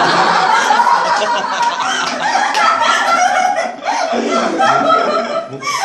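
A group of people laughing loudly together, easing off briefly about four seconds in and then picking up again.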